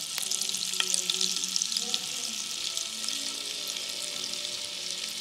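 Butter and cooking oil heating in a pan, the butter melting and sizzling with a steady hiss and scattered small crackles.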